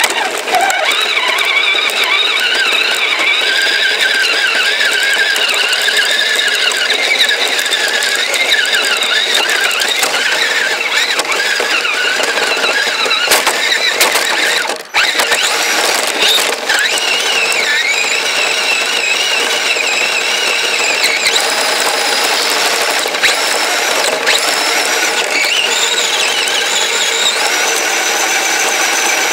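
Kyosho Blizzard RC snowcat's drivetrain running, heard from a camera riding on the model: the electric motor and chain drive give a high whine that wavers up and down with the throttle, over the steady clatter of the tracks. The whine cuts out briefly about fifteen seconds in, then picks up again.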